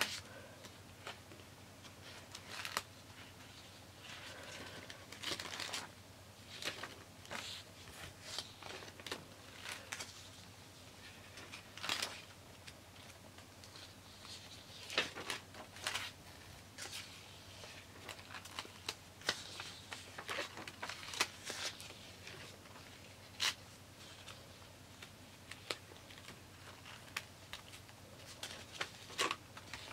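Paper pages of a spiral-bound journal being turned and smoothed by hand: irregular soft rustles, swishes and crinkles of paper, with light clicks as the pages fall and are pressed flat.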